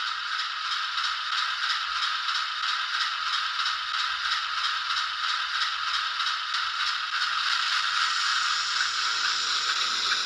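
A Hornby Class 08 model shunter's DCC sound decoder playing its diesel engine sound through the loco's small speaker as the OO gauge model runs, a steady, fast pulsing chug with no deep bass. The sound grows a little brighter near the end.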